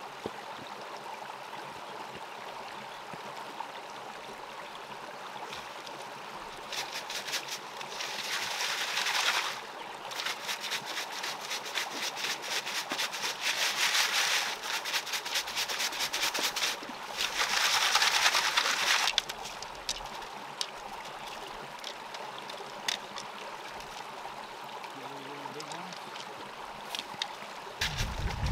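Gravel and small stones rattling in a fossicking sieve as it is shaken, in three bouts of dense, rapid clicking, the longest about six seconds. A steady low hiss runs under and between them.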